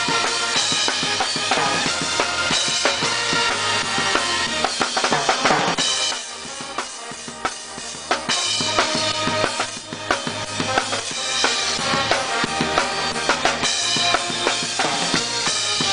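Music with a drum kit keeping a beat under pitched instruments, easing to a quieter passage about six seconds in before picking up again.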